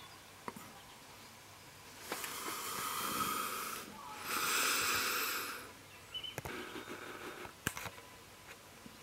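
Two long breaths close to the microphone, about two and four seconds in, followed by scattered soft clicks and light rustles.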